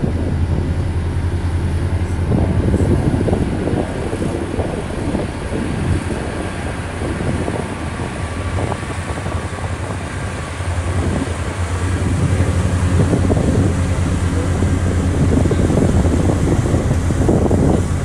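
Diesel engines of a Komatsu GD655 motor grader and a LiuGong single-drum roller running with a steady low hum. Wind rumbles on the microphone.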